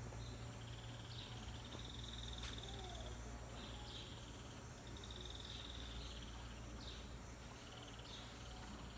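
High, buzzy animal trills, each under a second long, repeating about once a second over a low, steady outdoor rumble.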